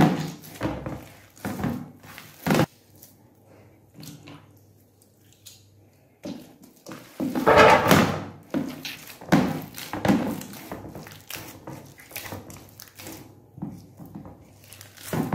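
Hands kneading a wet wheat-flour dough mixed with green chickpeas in a steel plate: irregular soft thuds of the dough being pressed and turned against the metal. There is a lull a few seconds in, and the kneading is busiest and loudest about halfway through.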